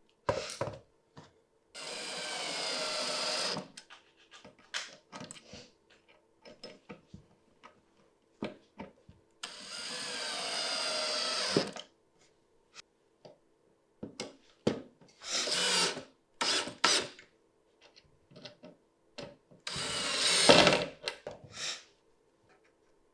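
Drill/driver driving screws into wood: two long runs of about two seconds each, the motor's pitch sinking slightly as it goes, then several shorter runs, with clicks and knocks of handling between.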